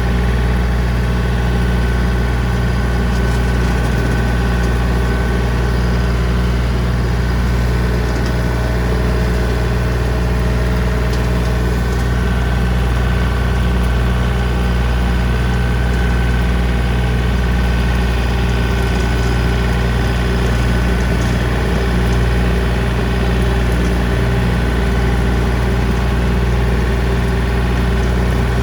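John Deere 3025D compact tractor's three-cylinder diesel running steadily at low speed while driving a rotary brush cutter, with a steady high whine over the engine note.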